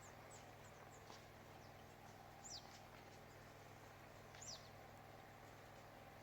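Near silence over a steady low hum, broken by two faint, short, high chirps that fall in pitch, about two seconds apart: a bird calling.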